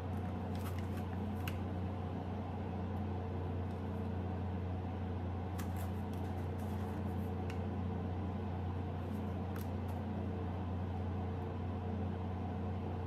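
Steady low hum of a running kitchen appliance, with a few faint light clicks and taps.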